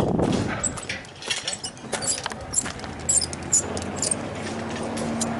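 Metal carabiners and harness buckles clicking and clinking in quick, irregular taps as a zip-line harness is clipped on. A faint low steady hum comes in about halfway through.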